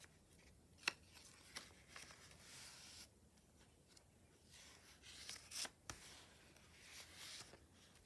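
Paper pages of a small handmade notebook turned by hand: soft rustles and swishes of paper sliding over paper, with a few light clicks and taps as pages settle.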